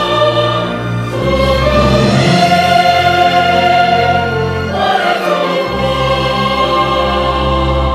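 Large mixed choir singing long held notes with a full symphony orchestra, horns and trumpets among the players; the chord changes about a second in and again about five seconds in.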